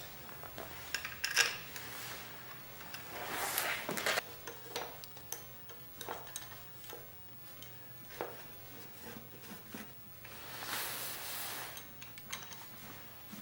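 Metal tools and small parts clinking, with a sharp clank about a second in and two longer scraping sounds, one a few seconds in and one near the end.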